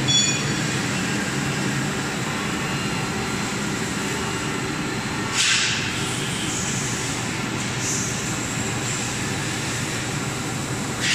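One-colour flexo label printing and varnishing machine running, a steady mechanical drone from its rollers and drive, with a short hiss about halfway through.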